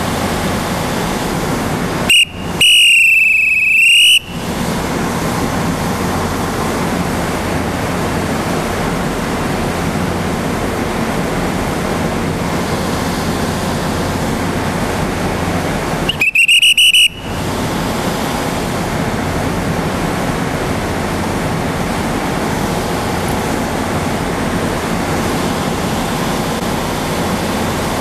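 Two loud, high-pitched whistle blasts, the first held about two seconds with its pitch arching slightly, the second shorter about sixteen seconds in, with a short toot at the very end. A steady rush of noise runs underneath.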